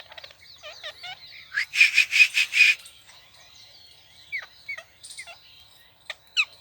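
Parrots squabbling over food. A quick chatter is followed, about two seconds in, by a run of about five loud, harsh screeches. After that come short, sharp calls that slide downward in pitch, every half second or so.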